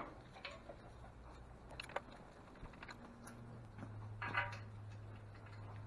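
Faint, sparse metal clicks and small taps from washers and bolts being handled while an engine block is fastened to its stand, with a low steady hum coming in about four seconds in.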